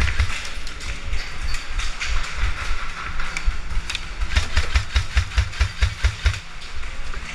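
Rustling and clatter of worn gear and a rifle handled close to a body-mounted action camera. About halfway through comes a run of about ten low thumps, some five a second, that sound like quick footsteps jolting the camera.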